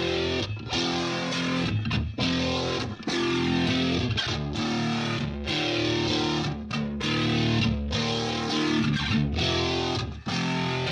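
Background rock music with distorted electric guitar and bass, the riff broken by short, sharp stops about once a second.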